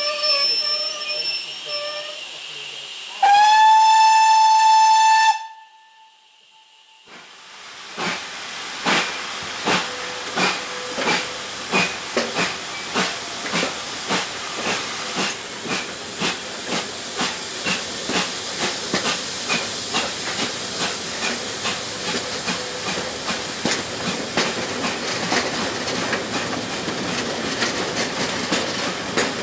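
A GWR Modified Hall 4-6-0 steam locomotive, No. 6988 Swithland Hall, sounds one steady whistle blast of about two seconds. A few seconds later the engine starts working, with regular exhaust beats and steam hiss.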